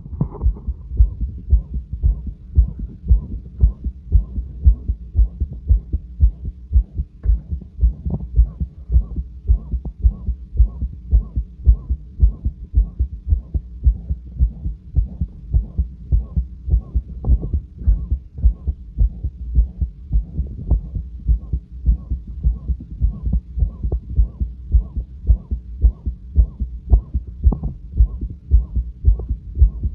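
A resting heart heard through a stethoscope, beating steadily and regularly. Each beat carries a loud, harsh whooshing heart murmur.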